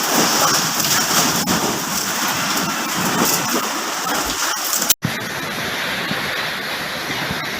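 Heavy rain pouring down hard in a storm, a dense steady rush with scattered sharp ticks. The sound cuts out for an instant about five seconds in and then resumes.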